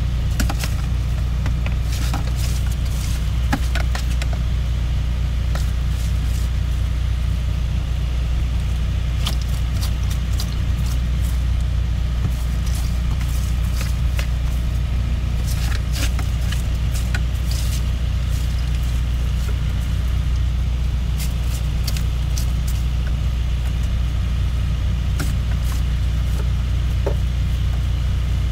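An engine idling with a steady low drone, under scattered rustles and light clatter of trash and debris being picked up from a truck cab floor.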